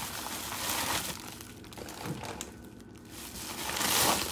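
Crinkling of a silver foil bubble-insulated packaging bag being handled as a hand rummages inside it. It is loudest in the first second, fainter and patchy through the middle, and swells again near the end.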